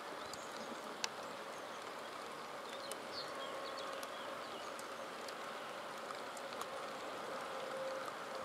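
Steady outdoor hiss of light rain over a meadow, with a faint steady hum, a few short high chirps and one sharp click about a second in.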